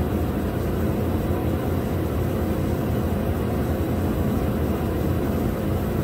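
Steady low mechanical drone of running machinery, unchanging throughout.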